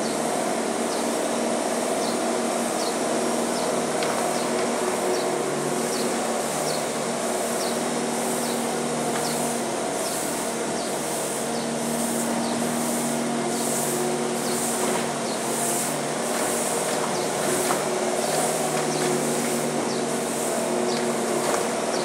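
Bobcat skid steer's diesel engine running steadily under work, its pitch shifting a little as the machine moves. A faint high chirp repeats roughly once a second.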